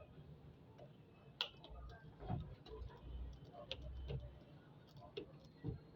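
Faint, irregular clicks and light taps of a screwdriver and tool handling while screws are unscrewed from a router's housing, the sharpest click about one and a half seconds in.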